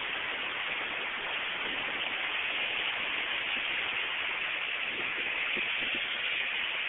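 Small waves washing up and sliding back on a pebbly shore, heard as a steady rush of noise.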